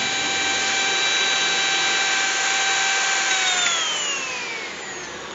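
Hand mixer's electric motor and beater gears running with a steady high whine on a test run after the wobbly-drive repair. About three seconds in it is switched off, and the whine falls in pitch as the motor spins down.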